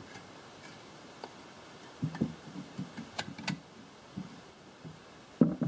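Handling knocks and taps as a steel gun body is fitted onto a wooden stock on a wooden workbench: scattered light knocks from about two seconds in, two sharp clicks a little after three seconds, and a louder knock near the end.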